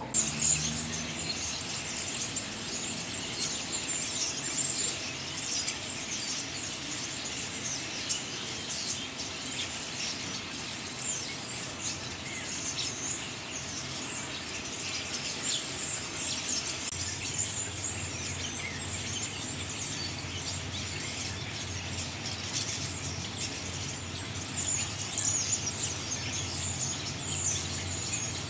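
A flock of common starlings, adults and juveniles, chattering in a tree: a dense, continuous mix of squeaky calls and high whistles, with no pauses.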